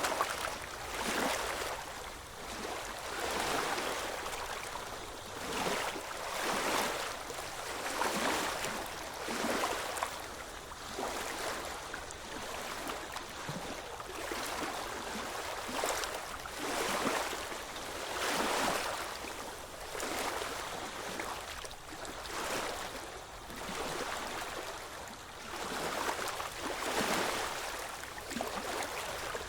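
Small ocean waves washing in, one swell of rushing water after another every second or two, with no steady tone beneath.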